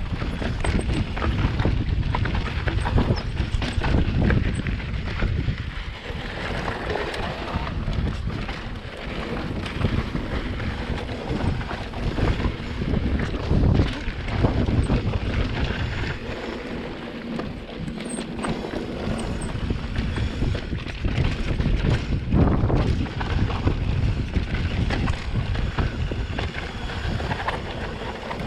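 Wind buffeting the microphone while an electric mountain bike is ridden over rough trail, with a constant low rumble and irregular knocks and rattles from the bike.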